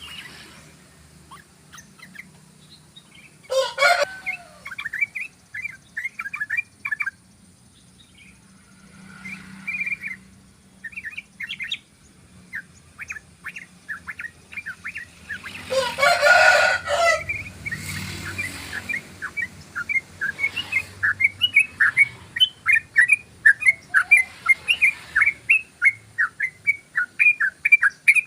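Yellow-vented bulbul singing its rapid chattering 'ropel' song: short notes in runs, coming steadily at about three a second in the second half. Two louder, harsher calls cut in, a short one about four seconds in and a longer one of over a second near the middle.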